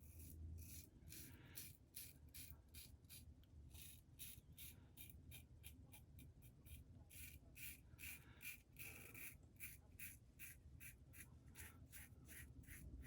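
Razorock Eco double-edge safety razor with a Gillette Nacet blade scraping through several days' stubble: many short, faint, scratchy strokes in quick succession.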